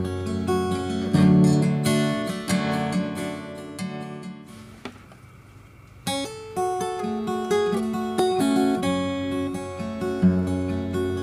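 Background music played on acoustic guitar, plucked and strummed. It dies away to a quiet gap a little before halfway, then comes back in abruptly about six seconds in.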